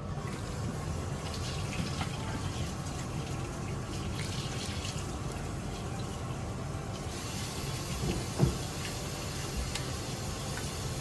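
Tap water running steadily into a kitchen sink, with a couple of light knocks as the shrimp are handled.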